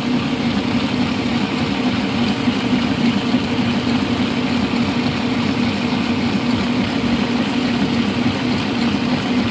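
Electric stand mixer running steadily at speed, its motor humming and the wire whisk beating a sugar batter in a stainless steel bowl, whipping it to a foam.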